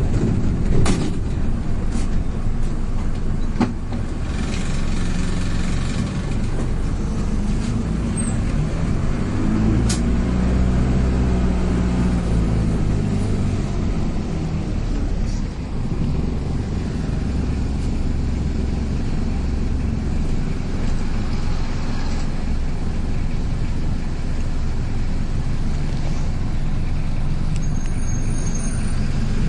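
City bus running along a street, heard from inside the cabin as a steady engine and road rumble. There are a few sharp knocks or rattles in the first few seconds, and the engine note rises and falls about a third of the way in.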